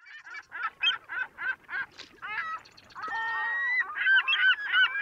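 A rapid series of honking bird calls, about four a second. From about three seconds in, several birds call over one another as a flock.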